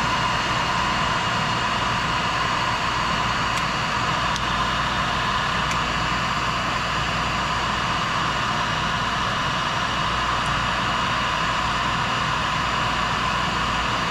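Electric heat gun running steadily: a blowing hiss with a thin high whine, hot air melting the solder and shrinking the sleeve of a solder-seal wire connector.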